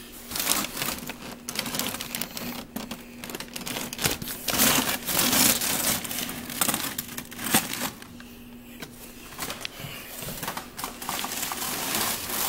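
Rustling and crinkling handling noise with irregular knocks, under a steady low hum that stops about three quarters of the way through.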